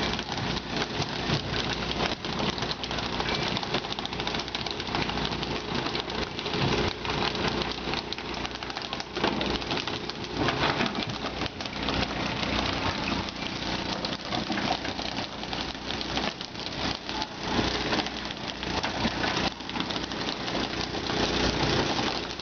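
A fishing boat's engine running steadily under a constant hiss of splashing water, with scattered knocks and thumps as tuna are hauled aboard.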